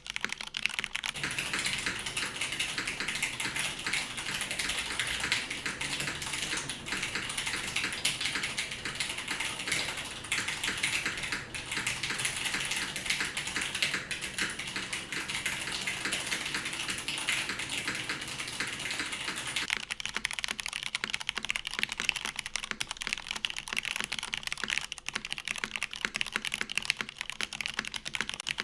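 Continuous fast typing on an NRD Kaze custom mechanical keyboard: smoked polycarbonate case, aluminium plate, stock Cherry MX Red linear switches with only the springs oiled, and GMK keycaps. The keys strike in a dense, unbroken stream.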